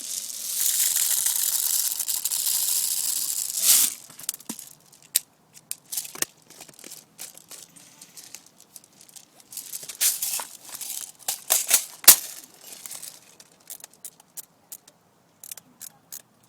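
Rustling and crackling close to the microphone: a continuous rustle for about the first four seconds, then scattered crunches and short clicks, the sharpest about twelve seconds in.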